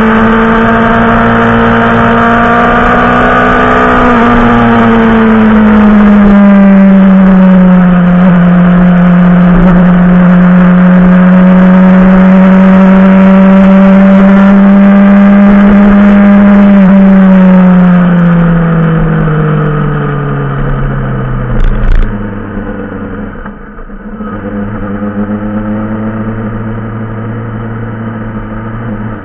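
Yamaha motorcycle engine heard from on board, running at a steady cruising pitch that steps down slightly a few seconds in and then holds. Past halfway the note falls away as the bike slows, with a couple of short clicks, and settles to a lower, quieter run near the end.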